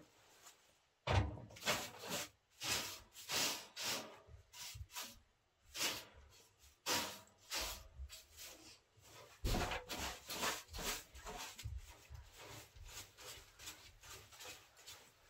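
Irregular scrapes, rubs and knocks as a cylindrical metal room stove is handled, with the heaviest knocks about a second in and again near ten seconds.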